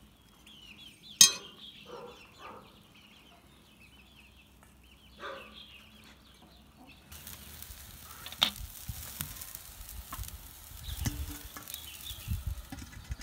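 A metal spoon scrapes and taps inside a steel bowl while packing rice into a pumpkin, with a sharp clink about a second in and chickens clucking faintly. Partway through a steady hiss from the wok on the fire sets in, and steel bowls clank as they are set into the wok for steaming.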